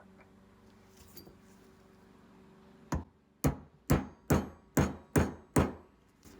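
Hammer tapping a pin punch to drive the float pivot pin out of a Bing carburetor body: one tap about three seconds in, then six more evenly spaced, a little over two a second.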